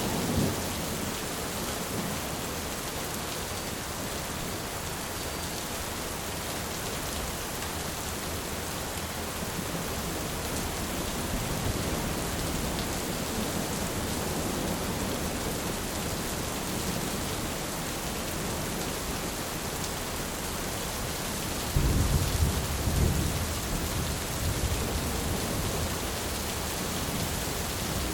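Heavy rain falling steadily in a thunderstorm. A low roll of thunder dies away at the start, and a new roll of thunder breaks in suddenly about three-quarters of the way through and rumbles for a few seconds.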